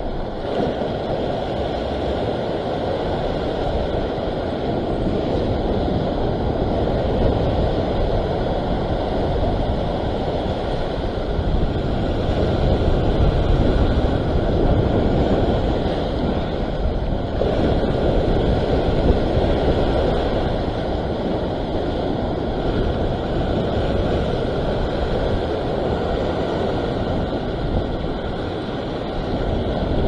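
Ocean surf washing and surging over a rock ledge, a steady rushing that swells and eases, with wind buffeting the microphone.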